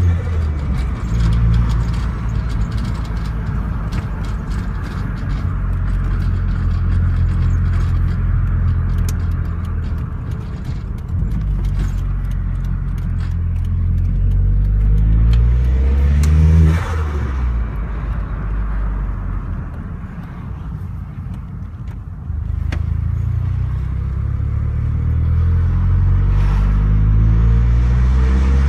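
Vauxhall Zafira GSi heard from inside the cabin on the move: the engine revs climb and then drop back at a gear change about two-thirds of the way in. It goes quieter for a few seconds, then pulls up again. Over the engine and road noise come many short clicking and rattling sounds from the car's interior.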